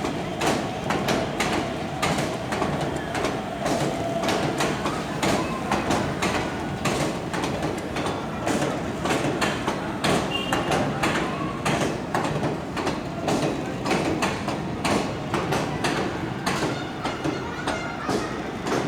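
Passenger express train's coaches rolling along the track, a continuous rattle dense with wheel clicks and clacks.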